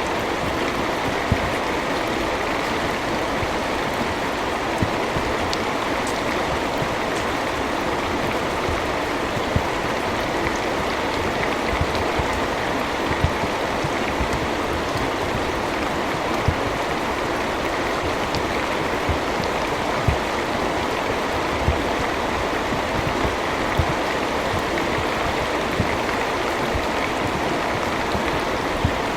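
Steady rain falling, an even hiss with scattered louder drops ticking and thumping every second or two.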